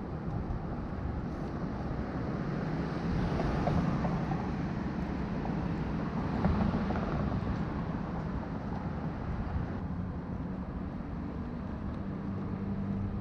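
Downtown street traffic: a steady hum of engines, with passing vehicles swelling louder about three and six seconds in.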